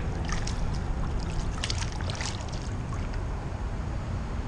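Shallow water sloshing, with a few small splashes in the first couple of seconds, as a hand-released peacock bass swims off. Under it runs a steady low rumble.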